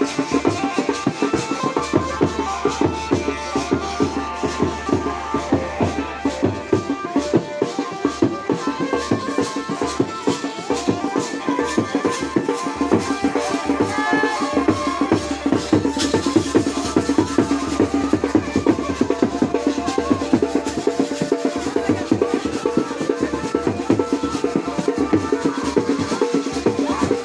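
Live Garhwali wedding band (band baja) playing: fast, continuous drumming on a dhol-type drum under held melodic notes.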